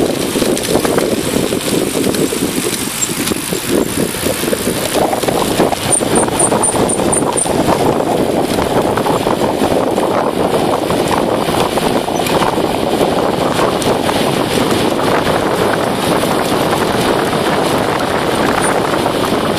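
Steady rush of wind on the microphone mixed with tyre and road noise from a bicycle riding downhill at speed.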